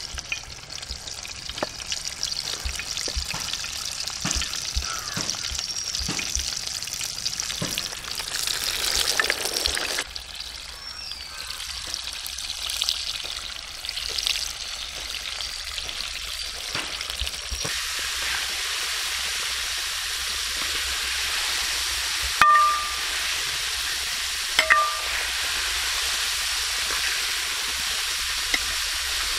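Soft knocks and rustling as flour-coated chicken pieces are handled in a steel bowl, then the steady sizzle of chicken deep-frying in hot oil in a large pot, stirred with a long metal spoon. A short squeak comes twice near the end.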